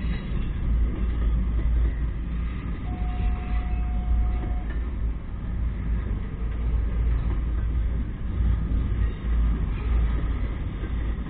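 Double-stack intermodal freight train's well cars rolling slowly past on the rails, a steady low rumble. About three seconds in, a brief steady tone sounds for under two seconds.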